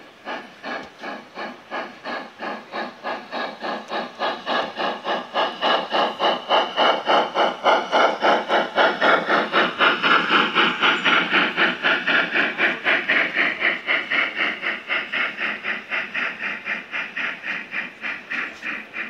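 Gauge 1 (1:32 scale) model steam locomotive running past with an even, rhythmic chuffing exhaust and a hiss. The beats grow louder as it approaches, peak as it passes about halfway through, then fade as it moves away.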